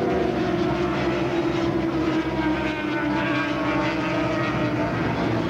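A pack of racing motorcycles running hard through a corner, several engines overlapping at high revs, their pitch sagging slowly.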